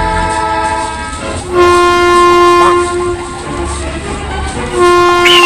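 Locomotive horn blowing a steady multi-note chord, swelling into a loud long blast about a second and a half in and again near the end.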